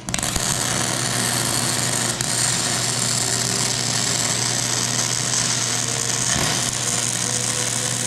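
MIG wire-feed welder laying a continuous bead on thick steel plate, a steady arc noise over a low hum that starts abruptly.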